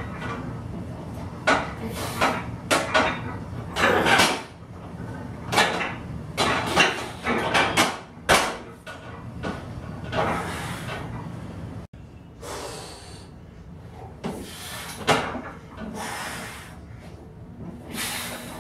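Irregular knocks, clanks and short scraping bursts from a vertical leg press loaded with weight plates as it is worked.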